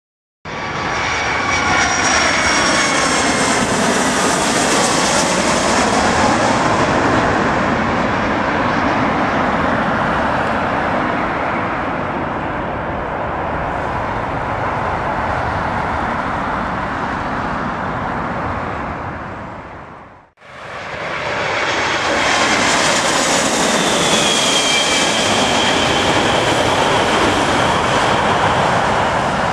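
Twin-engine jet airliner on final approach passing low overhead, its engine whine falling in pitch as it goes by. About two-thirds of the way in the sound cuts off, and a four-engine Boeing 747 on approach comes in with a steady high engine whine over the noise.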